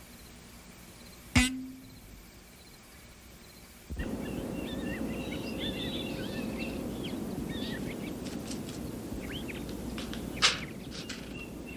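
Quiet at first, broken by a single sharp knock with a brief low ring. About four seconds in, it cuts abruptly to a steady outdoor background with small birds chirping, and a sharp click comes near the end.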